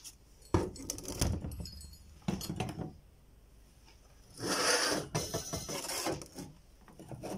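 Metal clutch parts handled on a tabletop: a few knocks and clunks as the clutch disc and transmission input shaft are put down, then a scrape lasting under a second, about halfway through, as the clutch pressure plate is slid across the table, followed by lighter knocks.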